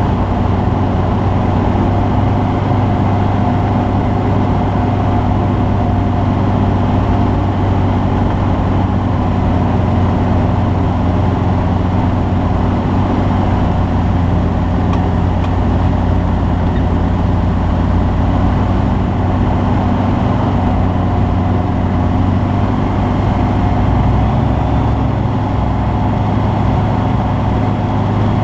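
Skyranger Classic microlight's Rotax 912S four-cylinder engine and propeller running steadily at constant power, heard from on board. About 24 seconds in the low engine note shifts slightly.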